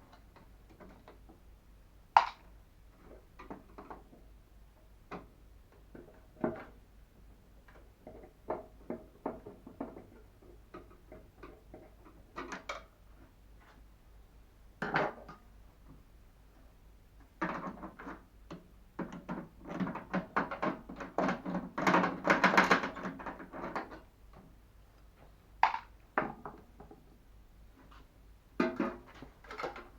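Scattered knocks, clicks and clatter of microwave oven parts and tools being handled during disassembly. There is a sharp knock about two seconds in and a longer spell of rapid rattling knocks near the middle.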